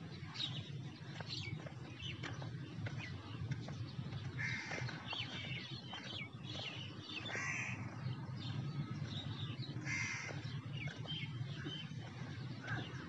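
Crows cawing: three loud harsh caws spaced about three seconds apart, among faint chirping of smaller birds, over a steady low rumble.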